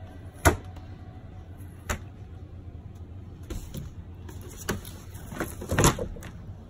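A handful of short knocks and taps, the loudest about half a second in and another pair just before the end, as stacked painted canvases are handled and shifted against each other, over a low steady hum.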